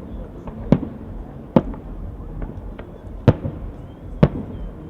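Festive fireworks salute: aerial shells bursting in sharp booms about once a second, four loud ones with a couple of smaller pops between them.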